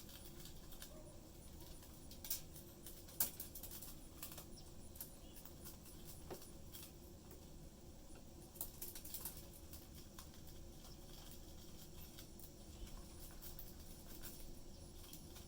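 Budgies moving about their cage: scattered light clicks, taps and scratches, a few louder taps among them, over a faint steady low background.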